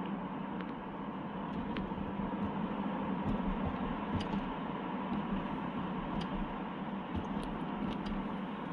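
Steady drone of a car on the move, with a low hum and a few light ticks.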